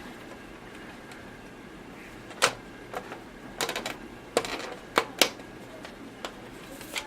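Irregular sharp clicks and taps of small hard parts being handled and fitted, some in quick clusters, the loudest about two and a half and five seconds in.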